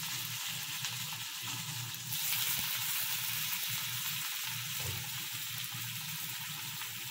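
Sliced ivy gourd (kundri) frying in hot oil in a kadhai: a steady sizzle that grows a little louder about two seconds in.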